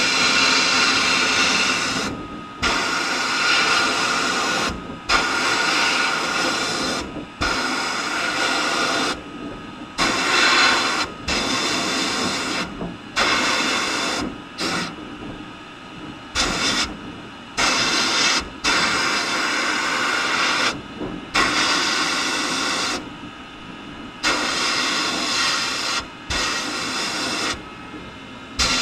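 Sandblast cabinet gun firing abrasive in short hissing bursts of one to two seconds, cut off and restarted again and again with brief gaps, stripping old paint and rust from small steel toy truck parts.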